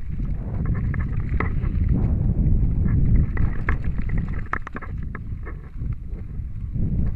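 Wind buffeting the camera microphone as a Scott Spark 10 mountain bike rides fast over a dirt singletrack: a steady low rumble with scattered clicks and rattles from the bike over the bumpy trail.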